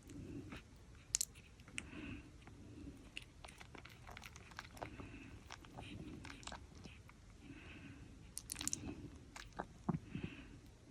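Young Jack Russell Pomeranian puppies' mouths at work: faint, scattered small clicks and chewing noises, with a few sharper clicks about a second in and near the end.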